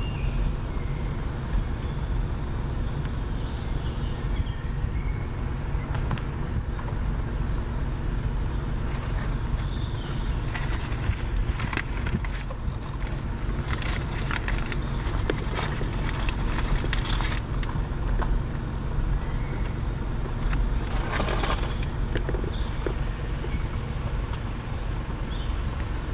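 Steady low rumble of a car driving slowly, with small birds calling over it. A stretch of crackling noise comes in the middle and a shorter one a little later.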